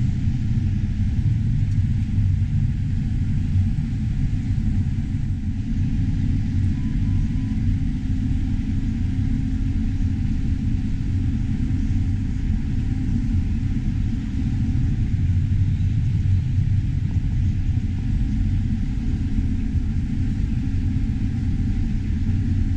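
Combine harvesting corn, heard from inside the cab: a steady low rumble of the engine and threshing machinery running at an even pace.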